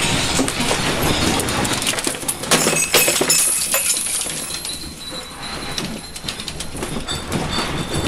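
A house shaking in the magnitude 8.8 earthquake: a low rumble under a dense, continuous rattling and clinking of loose household objects, loudest about three seconds in.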